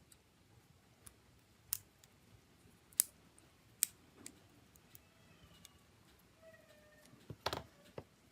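Scattered sharp clicks and taps of small tools and phone parts being handled. Three single clicks come in the first four seconds, then a faint brief squeak, then a quick cluster of clicks near the end.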